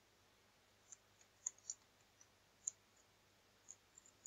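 About six faint computer keyboard keystroke clicks, unevenly spaced, over near silence.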